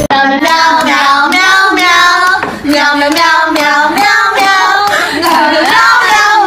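A song sung in a high, child-like voice over a steady beat.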